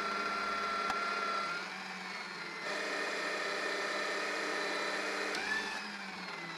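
Bosch drill press running, its 12 mm bit cutting a hole through a thin metal plate. It makes a steady machine hum that dips a little and comes back louder about a third of the way in as the bit bites.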